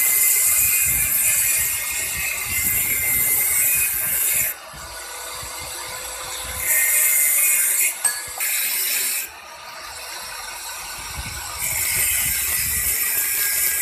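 Handheld angle grinder with a cut-off disc cutting through a 304 stainless steel rod: a loud, high grinding screech while the disc bites into the steel, coming in spells about four seconds long, then again around seven seconds and from about twelve seconds, dropping back to a quieter run in between.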